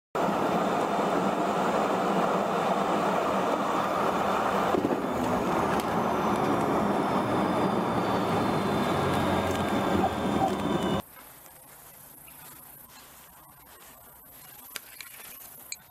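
Jet airliner landing, heard from inside the cabin: a loud steady rush of engine and air noise that changes character about five seconds in around touchdown, then a falling whine as it rolls out on the runway with spoilers raised. About eleven seconds in it cuts to a faint outdoor background with a few small clicks.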